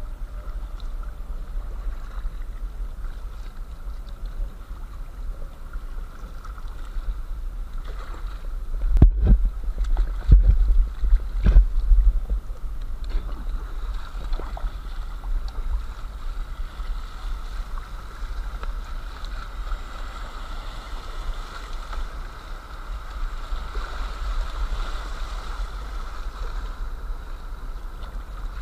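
River water rushing and splashing around a kayak being paddled down a fast, shallow mountain river, picked up by an action camera mounted on the boat, with a steady low rumble on the microphone. A few heavy knocks come about nine to twelve seconds in.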